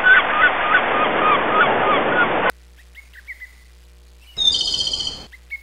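A flock of birds calling, many short honking cries over a hiss of background noise, which cuts off abruptly about two and a half seconds in. A few faint chirps follow, then a brief high-pitched tone for under a second near the end.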